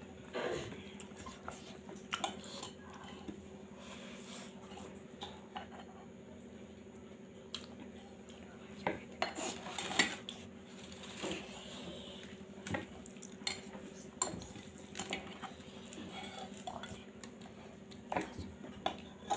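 Hand-eating on a steel plate: fingers mixing and scooping rice and mushroom-pea curry, with scattered light clicks and scrapes against the metal plate and chewing between them. A faint steady low hum sits underneath.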